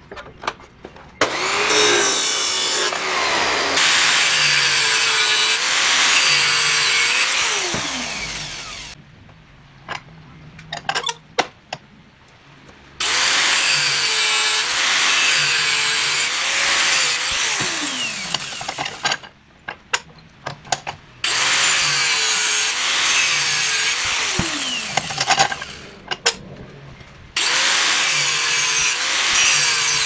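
Abrasive cut-off discs cutting steel pipe, a chop saw and then an angle grinder, in four long cuts of several seconds each. The motor's pitch wavers under load and drops away near the end of each cut. The short pauses between cuts hold clicks and knocks.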